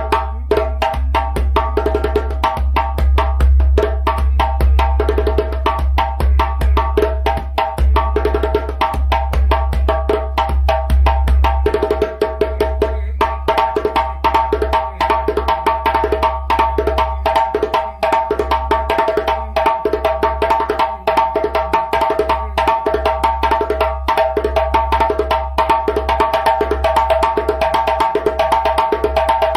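Hardwood djembe from Mali with a calfskin head, played by hand in a fast, continuous rhythm of deep bass strokes and sharp higher strokes.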